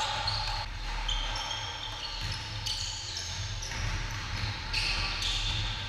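Basketball bouncing and rubber-soled sneakers squeaking in short high chirps on a hardwood gym floor during a full-court game, over a steady low hum in the hall.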